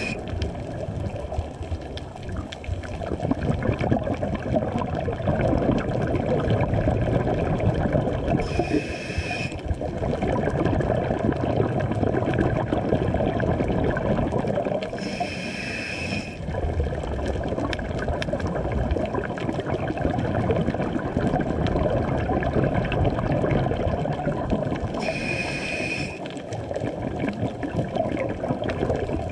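Scuba regulator breathing, recorded underwater: three short hissing inhales with a whistle-like tone, each about a second long and six to ten seconds apart, between long stretches of gurgling exhaled bubbles.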